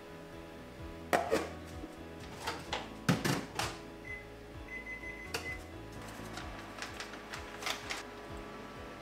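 Kitchen utensils and dishes being handled: a series of sharp clicks and knocks, loudest a little after one second and around three seconds in, over soft background music.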